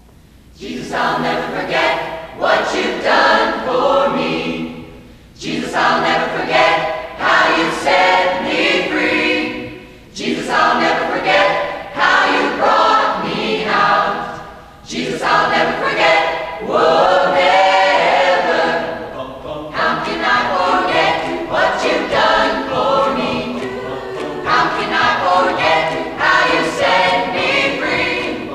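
Mixed choir of young men and women singing in parts, starting about a second in after a brief hush and going on in long phrases with short breaks between them.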